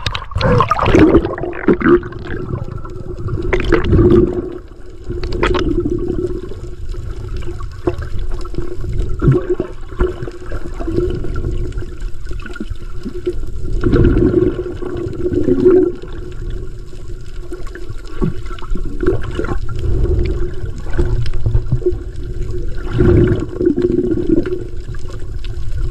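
Muffled water sloshing and gurgling, as picked up by a camera at and under the sea surface, with louder swells every few seconds over a steady low hum.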